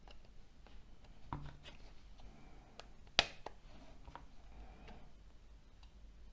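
Faint taps and clicks of small plastic phone parts being handled during a Nokia C6-00 teardown, with one sharp click about three seconds in.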